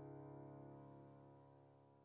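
Background music: a held keyboard chord slowly fading out.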